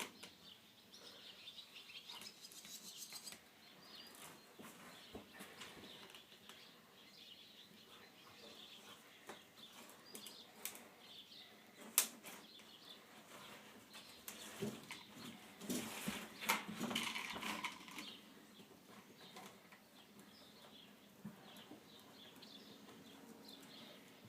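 Spline roller pressing rubber spline and fiberglass screen down into a window screen frame's channel: faint scattered clicks, rubbing and rustling, with one sharp click about halfway through and a busier stretch of clicking and rubbing a few seconds later.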